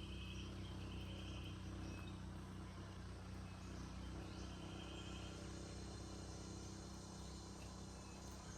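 Steady low mechanical hum, with short buzzing insect trills repeating every second or two and a few high bird chirps over it.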